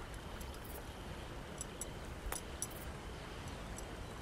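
Quiet outdoor ambience: a faint, steady hiss with a few soft ticks and one clearer click about two seconds in.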